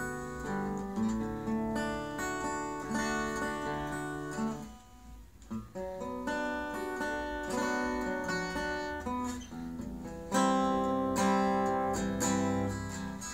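Fender acoustic guitar being strummed, with chords ringing out. It dips briefly quiet about five seconds in, then is strummed harder and louder from about ten seconds in.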